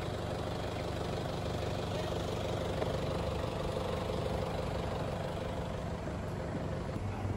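Steady low mechanical hum with a few faint constant tones, like an engine or machine running at idle.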